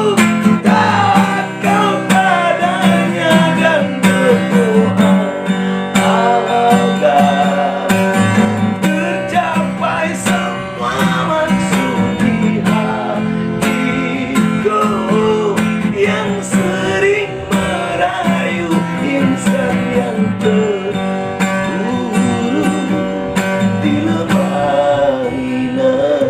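Instrumental passage of a slow rock song: a guitar carries a wavering melody over sustained bass and chords.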